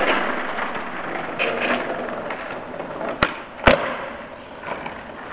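Skateboard wheels rolling over brick paving, with two sharp cracks about half a second apart a little past three seconds in, the second louder: the board popping off the ground and landing a trick.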